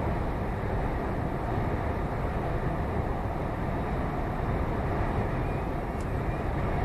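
Steady engine and road noise heard inside the cab of a Scania lorry while driving, with a faint tick about six seconds in.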